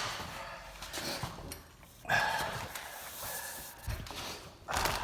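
A man breathing hard and out of breath from hauling a heavy electric scooter, with a long, heavy breath about two seconds in and another near the end.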